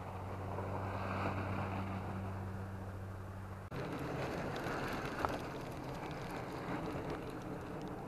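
Steady outdoor rush of wind and distant road traffic, with a low hum that cuts off abruptly about four seconds in and a single sharp click about a second later.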